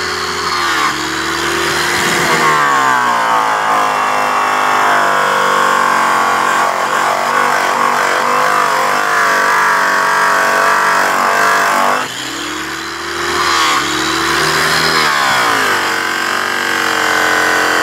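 Electric polisher spinning a yellow airway buff against a polished aluminum truck wheel in the finishing stage, its motor running steadily with the pitch dipping and recovering several times as it works the metal.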